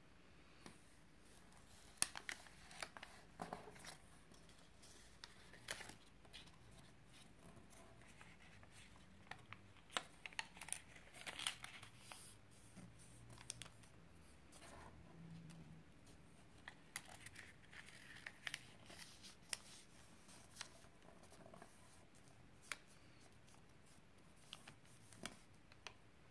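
A sheet of origami paper being folded and creased by hand: scattered crinkles and rustles with short, sharp creasing clicks, in irregular clusters separated by quieter pauses.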